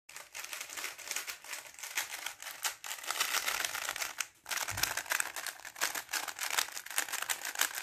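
A 3x3 speedcube, a GAN XS, being turned fast: a dense run of quick plastic clicks and clacks as the layers snap round, with a short break about four and a half seconds in.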